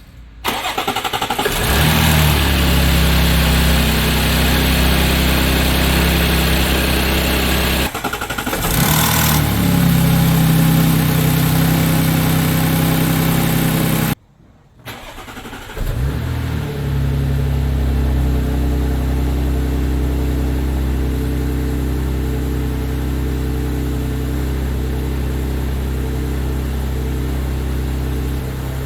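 Audi 3.0 TFSI supercharged V6 cold-starting with timing chain rattle, which the owner believes comes from lost hydraulic pressure in one or more chain tensioners. About 14 seconds in the sound drops out, and a second or two later the engine is running again, settling into a steadier idle.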